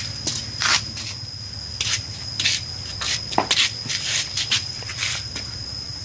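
Close handling noise against a large spotted grey bird: a string of short, scratchy bursts right at the microphone, about ten of them, irregularly spaced. A steady, thin high whine runs behind them.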